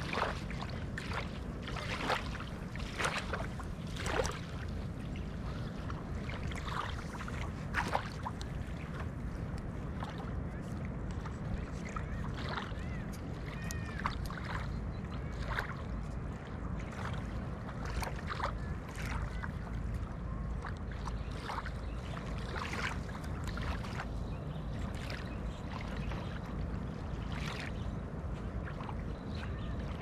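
Small wavelets of a calm sea lapping and splashing on a sandy shore, in irregular little splashes over a steady low rumble.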